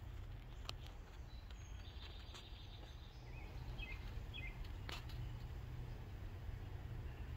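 Quiet outdoor ambience: a steady low rumble, a few short bird chirps around the middle, and a couple of sharp clicks, the loudest about five seconds in.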